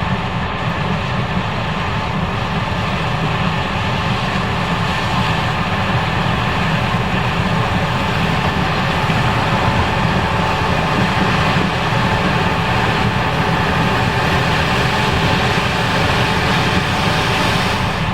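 Case IH 5140 Axial-Flow combine running steadily under load while harvesting corn, a continuous engine and machinery drone.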